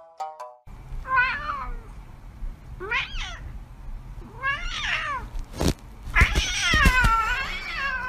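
A domestic cat meowing four times, each call rising and falling in pitch, the last one drawn out to about two seconds. A few sharp knocks from handling come between and under the later meows.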